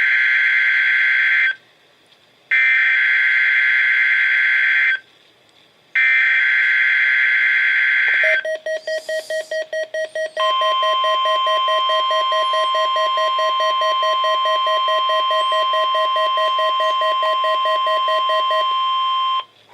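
NOAA Weather Radio Required Weekly Test signal. Three bursts of the SAME digital header play first, a harsh warbling data screech with about a second of quiet between bursts. Rapid beeping at about five a second follows, and then the steady 1050 Hz warning alarm tone holds for about nine seconds, with the beeping running under it until near the end.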